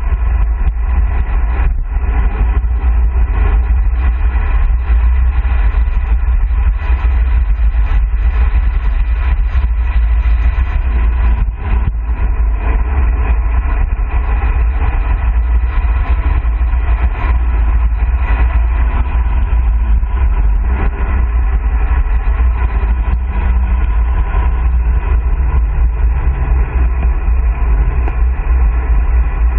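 Wind buffeting the microphone of a camera on a road bike descending fast, about 35 to 50 km/h: a loud, steady low rumble.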